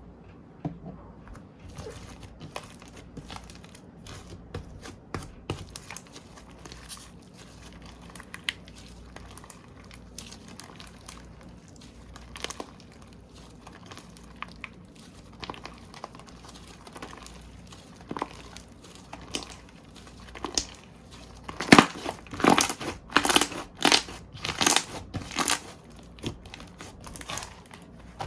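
Slime being squeezed and worked by hand, giving many small clicks and pops, with a louder, denser run of crackles about three quarters of the way through.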